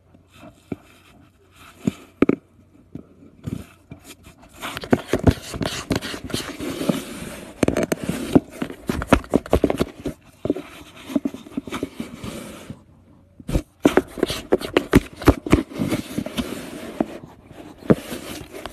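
Cat scrabbling and scratching inside a cardboard box: a busy run of scraping and knocking on cardboard, broken by a pause of about a second partway through.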